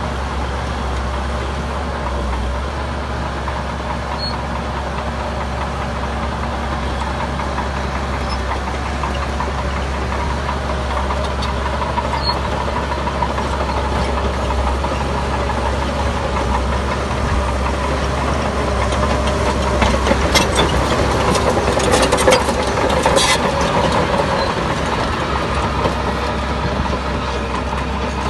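The diesel engine of a piece of heavy earthmoving machinery runs steadily. About twenty seconds in it grows louder for a few seconds, with a run of sharp knocks and clatter.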